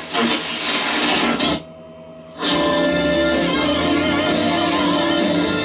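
AM shortwave broadcast audio from a Kenwood TS-440S receiver's speaker as it is tuned across the 41-metre band. Choppy, broken audio drops to near quiet about a second and a half in. Then a station playing music comes in and holds steady.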